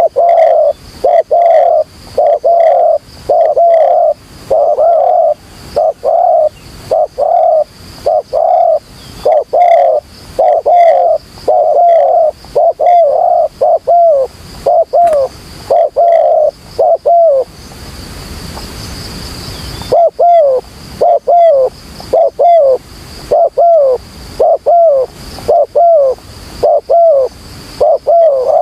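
Spotted doves cooing loudly in quick succession, a little more than one coo a second, each ending in a falling note. The cooing breaks off for about two seconds past the middle under a brief rush of noise, then resumes.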